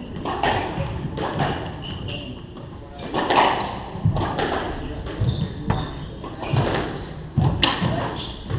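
Squash rally: irregular sharp smacks of racket strikes and the ball hitting the court walls, about once or twice a second, with footsteps on the wooden floor and a couple of short high squeaks.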